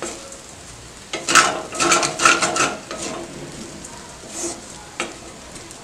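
Wooden spatula stirring and scraping poha (flattened rice) around a stainless steel pan: a run of quick scrapes about a second in lasting some two seconds, then a single sharp knock near the end.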